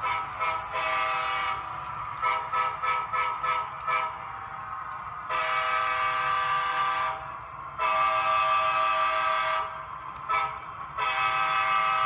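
The sound decoder in an HO-scale Norfolk Southern SD60E model locomotive sounds its horn, a multi-note chord. It opens with a quick run of short toots, then gives two long blasts, a short one and a long one, the long-long-short-long grade-crossing signal.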